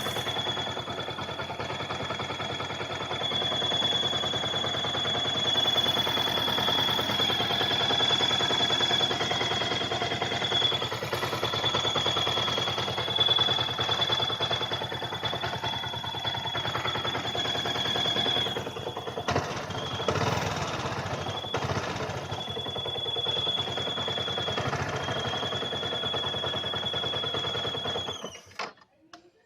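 Yamaha R15's liquid-cooled single-cylinder engine running with a steady, high-pitched whistle over the engine noise: the sign of a defective water pump bearing, which whines once the engine is hot and the pump is loaded by flowing coolant. The whistle breaks off a few times about two-thirds through, and the sound cuts off suddenly near the end.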